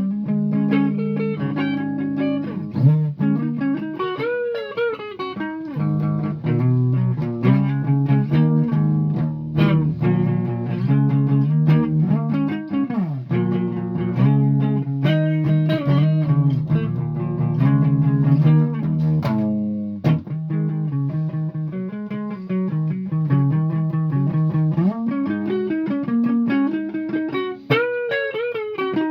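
Guitar being played: picked notes over sustained low notes, with several notes bent up and down in pitch.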